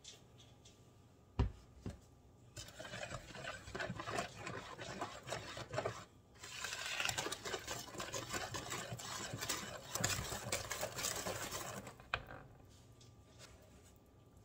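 A sharp knock about a second in, then cake batter being mixed in a bowl in two spells: one of about three and a half seconds and, after a brief break, a louder one of about five and a half seconds that stops abruptly. The first half of the flour and cocoa dry mix is being worked into the wet batter.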